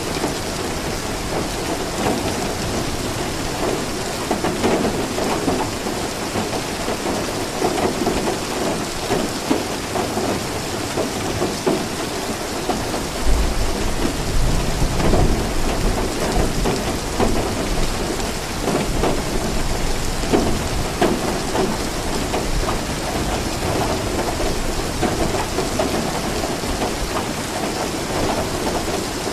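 Steady heavy rain falling and pattering on surfaces, with a long low rumble of thunder rolling in around the middle.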